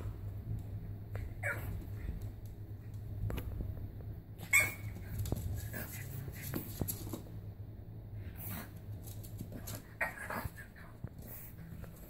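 French bulldog puppy making a few short whimpers and snuffles, the sharpest about four and a half seconds in, over a steady low hum.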